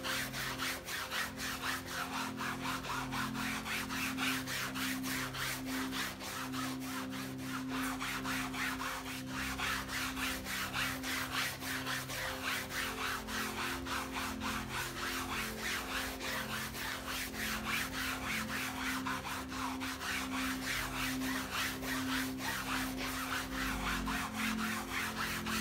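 Soft sponge scrubbing a soapy cloth mouse pad in quick, even back-and-forth strokes: a rhythmic rubbing of wet foam over fabric, over a low steady hum.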